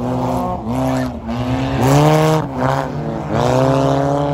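Front-wheel-drive race cars on studded tires sliding on an ice track, their engines revving up and dropping back about four times, then holding high near the end. A burst of hiss about two seconds in.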